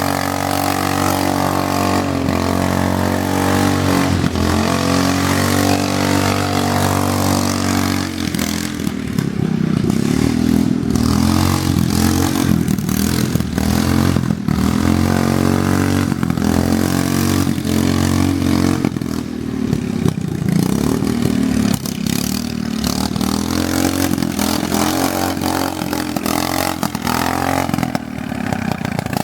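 Riding lawn mower engine running loud and steady, then from about eight seconds in its pitch rises and falls over and over as it is revved and driven.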